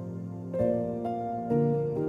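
Soft background music, gentle piano chords with a new chord struck about half a second in and another near the end.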